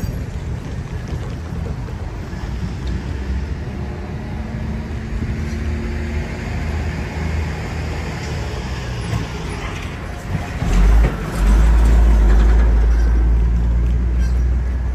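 A steady low rumble of a train and traffic in the distance. About eleven seconds in, heavy wind buffeting on the microphone starts suddenly and becomes the loudest sound.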